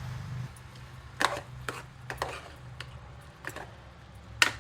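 Ladle stirring thick gravy in a pressure cooker pot, with a handful of separate knocks and scrapes of the ladle against the metal, the sharpest near the end; a low steady hum underneath.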